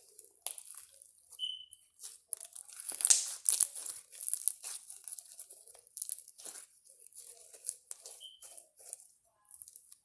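Slime being squished and pulled by hand: a steady run of irregular short clicks, crackles and sticky pops, loudest about three seconds in. Two brief high tones are heard, once early and once near the end.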